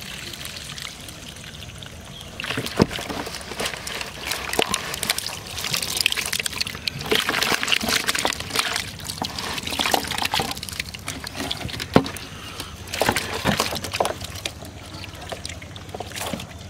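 Water sloshing and pouring in a plastic basin as a catch of small fish is rinsed and the water tipped out onto grass. It gets louder a couple of seconds in, with irregular splashing and a few sharp slaps, the loudest about twelve seconds in.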